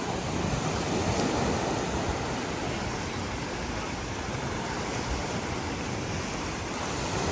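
Steady, even wash of surf and wind on the beach, with no distinct events.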